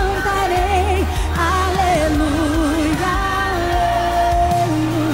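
Woman singing a gospel worship song into a handheld microphone over instrumental accompaniment with a steady bass and drum beat; her voice wavers with vibrato and holds one long note near the end.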